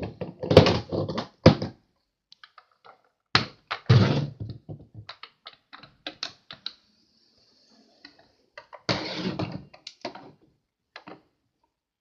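Plastic Hess toy trucks being handled and moved by hand on the floor: a series of knocks, scrapes and small clicks, with a thin high steady tone for about a second and a half midway.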